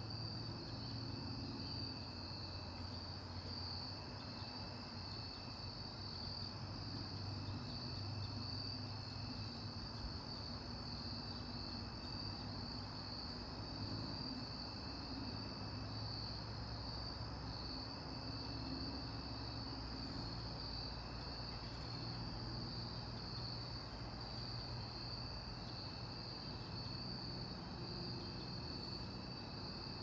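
Chorus of night insects trilling steadily in one high-pitched band, with a fainter, lower steady tone and a low rumble underneath.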